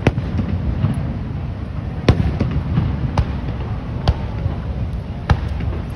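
Aerial fireworks shells bursting: five sharp bangs about a second apart, over a steady low rumble.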